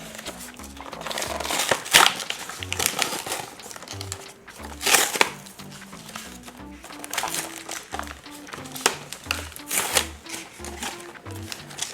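Plastic toy packaging crinkling and clicking in irregular bursts as it is handled and opened, over background music with a simple stepping melody.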